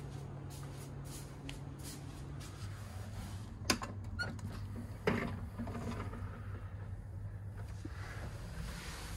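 A capsule-hotel capsule's roll-down privacy screen being pulled down over the entrance: a sharp click a little over three and a half seconds in, a short rattle, then another click about five seconds in, followed by some scraping. A steady low hum runs underneath.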